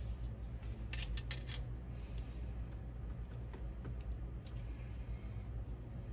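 Light clicks and taps of small center-console trim parts and clips being handled, with a cluster of sharp clicks about a second in and fainter ticks after, over a low steady hum.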